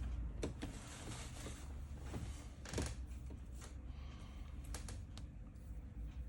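Scattered light clicks and taps of an iPhone being handled on a repair bench, the loudest a little under three seconds in, over a low steady hum.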